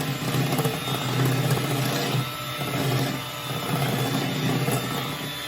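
Electric hand mixer running steadily, its beaters whipping confectioner's sugar, butter, milk and flavoring into a glaze.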